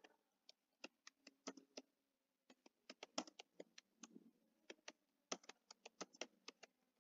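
Faint, irregular keystrokes of someone typing on a computer keyboard, a few clicks a second.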